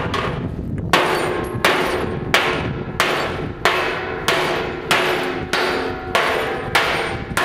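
A tomahawk hacks repeatedly into the side of a rusty steel drum. The blows fall at about three every two seconds, and each metal-on-metal clang leaves the drum ringing.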